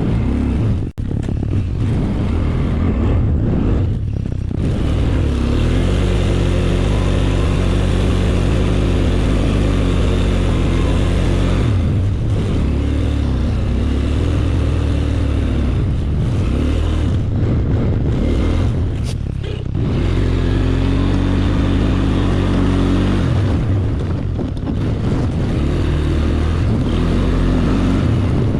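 ATV engine running under throttle, its pitch rising and falling over and over as it speeds up and slows, with a few brief drops in revs.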